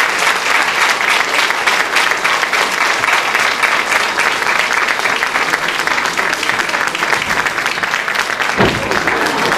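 Audience applauding, many hands clapping in a dense steady patter, with a dull low thump near the end.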